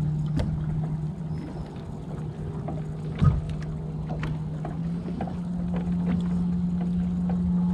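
Bass boat's electric bow-mount trolling motor humming steadily as the boat creeps along, its pitch stepping up slightly about five seconds in. Light ticks throughout, and one sharp knock a little after three seconds in.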